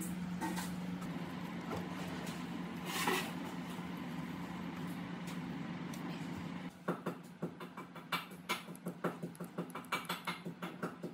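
A steady low hum that stops about two-thirds of the way in, followed by many light, irregular clicks and taps of hands working small parts and wires on an electric motor.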